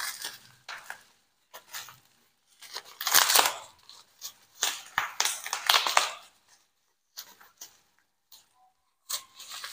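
Black plastic bag and bubble wrap crinkling and rustling as a parcel is unwrapped by hand, in irregular bursts with short pauses between them.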